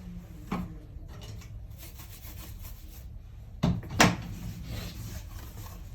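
Hands handling parts inside an open laptop while fitting a thermal pad onto an M.2 SSD: a light click about half a second in and two sharp knocks close together past the middle, over a steady low hum.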